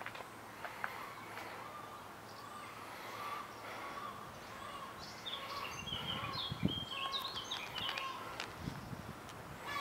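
Outdoor ambience with birds calling: short repeated notes throughout, then a run of high chirping song from about halfway. Two low rumbles come in the second half.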